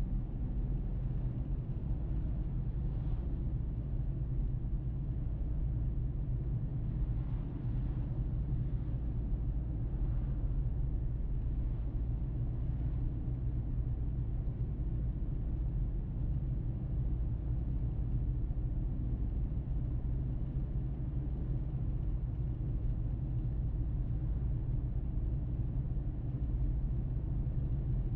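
Steady low rumble of a car being driven, its engine and tyre noise holding even with no sudden changes.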